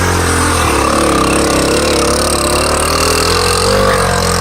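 Honda Trail 110's small single-cylinder four-stroke engine running hard under load, its pitch wavering up and down as the throttle is worked on a steep trail.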